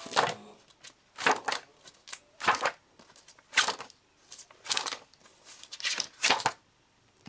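Paper pages of a spiral-bound printed manual being turned one after another, a short rustling flip roughly once a second.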